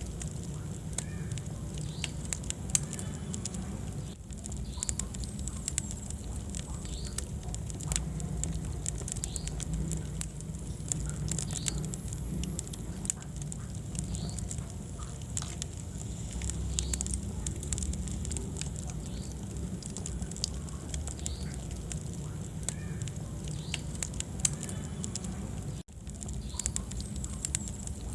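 Wood fire burning in a fireplace: a steady low rumble of flames with frequent sharp crackles and pops. The sound drops out briefly about 26 seconds in.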